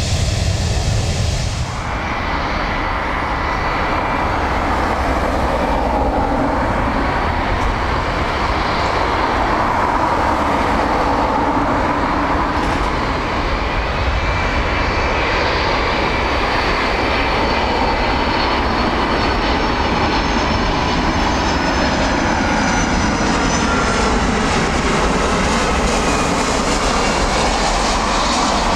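Boeing 757 jet engines running steadily as the airliner comes in on final approach to land: a loud, even whine with several faint held tones over it. There is an abrupt change about two seconds in, where the sound of another 757 on the runway cuts away.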